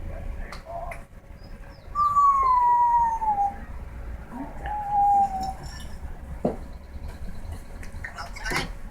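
Pet bird giving a long call that slides down in pitch about two seconds in, then a shorter, steadier call about five seconds in.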